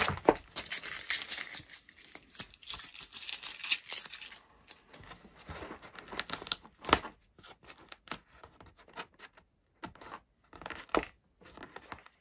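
Adhesive tape being peeled off an EPP foam wing, a dense ripping and crinkling for the first four seconds or so. After that come scattered short clicks and knocks of handling, the loudest about seven seconds in.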